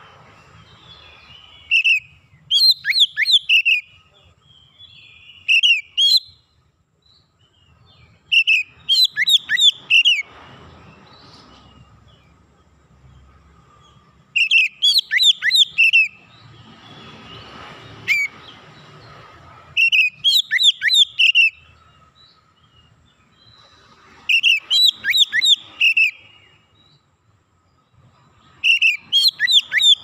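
Male oriental magpie-robin (kacer) singing: short, loud phrases of rapid, sweeping whistled notes, repeated about seven times with pauses of a few seconds between them.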